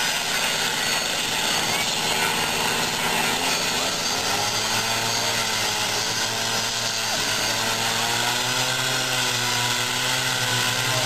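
Power tools working ice: a steady hiss of cutting and grinding throughout, joined about four seconds in by a motor's steady hum that drops in pitch at the very end as it winds down.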